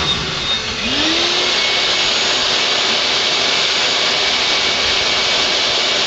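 CNC-converted Grizzly G0619 mill dry-cutting 6061 aluminum with a 6-flute carbide end mill: a steady machine hiss and whine. About a second in, a tone rises in pitch and then holds steady as the feed move gets under way.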